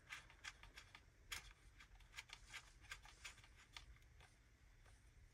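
Very faint, scattered light clicks and rustling of a GPS antenna cable being handled as its threaded connector is fitted to the back of an aftermarket car radio head unit.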